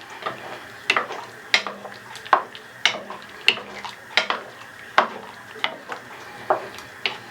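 A spoon clinking against the side of a pot while stirring gumbo, in a steady rhythm of about one clink every two-thirds of a second.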